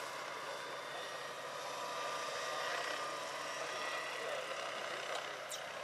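Electric Vario Bell 212 scale model helicopter in flight, giving a steady high-pitched whine from its electric drive along with rotor noise.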